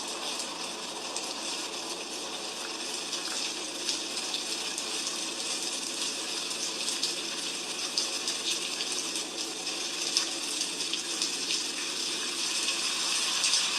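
Heavy rain falling steadily: an even hiss with many small, sharp drop ticks and splashes.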